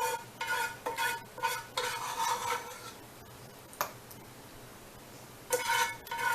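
A metal utensil scraping and knocking inside a saucepan, the pan ringing with each stroke, as the last of the barbecue sauce is scooped out. A quick run of strokes in the first couple of seconds, a single click near the middle, and more scraping near the end.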